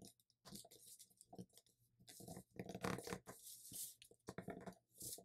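Faint crinkling and rustling of a sheet of letter-size paper being folded and creased by hand, with short irregular scratches as fingers press and run along the fold.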